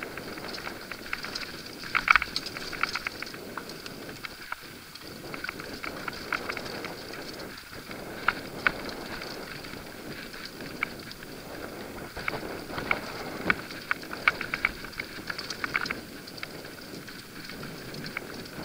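Mountain bike riding down a rocky dirt singletrack: steady tyre noise on the dirt, with the bike rattling and clattering in sharp clusters of clicks as it goes over rocks and roots.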